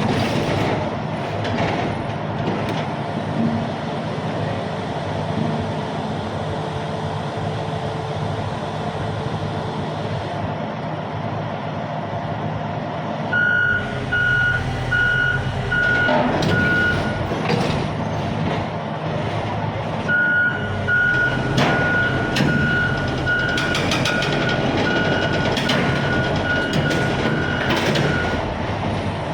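Heavy diesel engine running steadily while a reversing alarm beeps at about one and a half beeps a second, in two runs starting about 13 and 20 seconds in.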